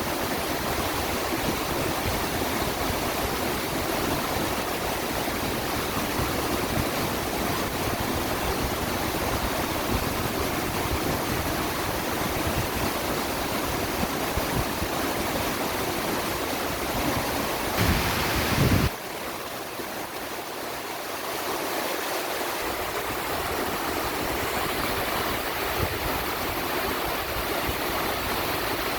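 A mountain stream running high and fast after days of heavy rain, a steady full rush of water. About two-thirds of the way in the rush briefly swells, then drops suddenly and sounds thinner for a few seconds before coming back.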